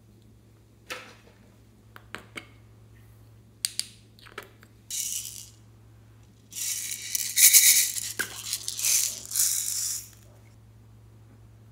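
Small plastic beads and sprinkles rattling as they are shaken out of a plastic container into a glass dish, in a dense rattle lasting a few seconds. Before it come a few separate clicks and taps from small jars and lids.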